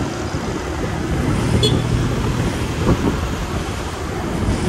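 Road traffic noise of scooters and cars running in dense street traffic, heard from a moving motorbike, with a steady rumble weighted to the low end.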